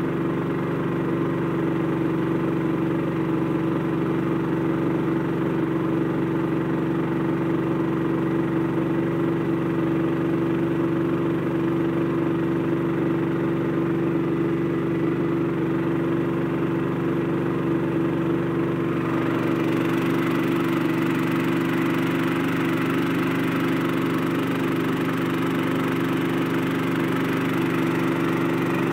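Brand-new Honda 13 HP single-cylinder four-stroke engine running steadily at a constant speed. About two-thirds of the way through, a hiss over it grows louder.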